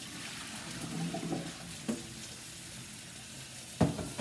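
Steaks sizzling steadily in a frying pan, with water splashing in the sink as potatoes are rinsed, most in the first second or so. A sharp knock near the end is the loudest sound.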